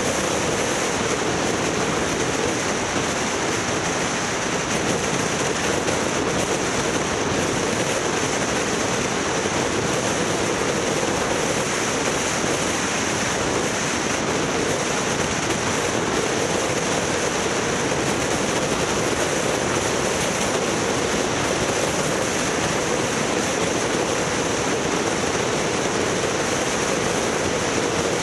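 Steady, unbroken rushing noise at an even level, with no speech and no distinct events.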